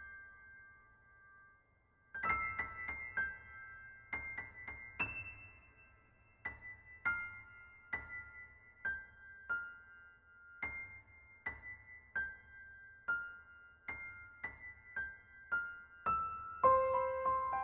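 Slow solo piano background music: single notes struck one at a time and left to ring, with a pause of about a second and a half near the start. Lower, fuller notes come in near the end.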